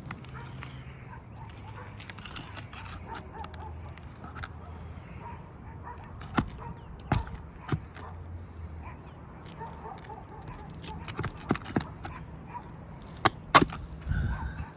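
Scattered sharp snaps and knocks from brittle asphalt shingles being pried up and their nails pulled, with a low steady rumble underneath.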